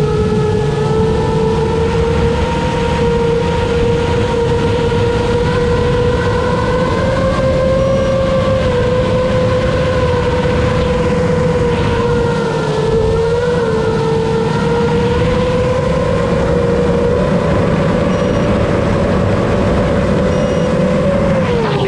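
7-inch FPV quadcopter's brushless motors and propellers whining steadily in flight, heard from the onboard camera over heavy wind rush. The whine's pitch wavers a little with throttle and drops briefly near the end.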